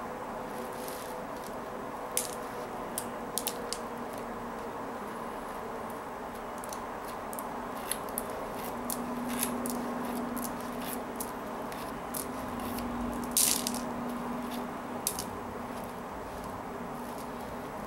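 Plastic pony beads of a peyote-stitch kandi panel clicking and thread rustling as the panel is picked apart by hand, with scattered sharp clicks over a steady background hum.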